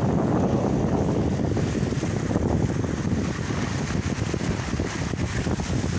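Wind buffeting the microphone: a steady, low, fluttering rush.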